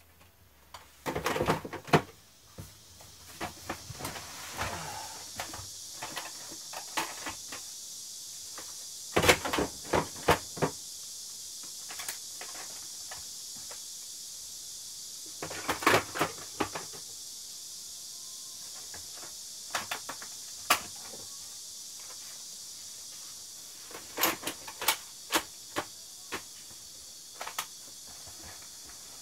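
Plastic cassette tape cases clicking and clacking against each other and the shelves as they are handled and stacked, in scattered clusters of sharp clicks, over a steady high hiss.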